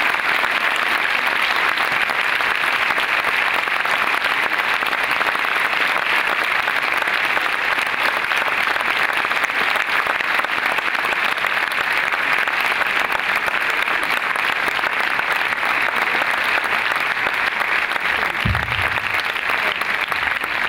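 Audience applauding steadily and at length.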